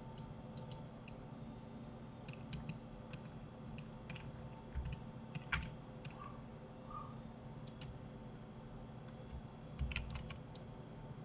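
Computer keyboard keys and mouse buttons clicking, a few at a time in small irregular clusters with pauses between.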